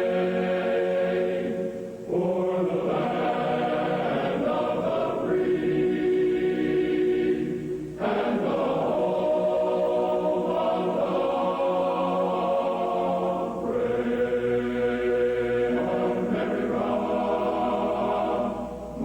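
A choir singing slow, held chords in long phrases, with brief breaks between phrases every few seconds.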